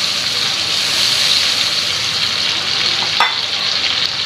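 Prawns frying in oil with tomato, green chillies and soy sauce, sizzling steadily in a frying pan as they are stirred, with one sharp click about three seconds in.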